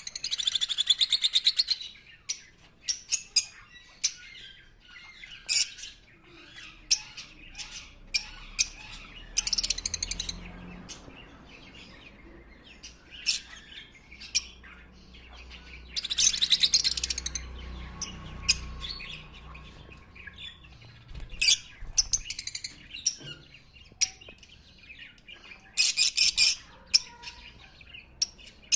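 Pet lovebirds chirping: sharp, high single chirps throughout, broken four times by a second or two of rapid, shrill chattering.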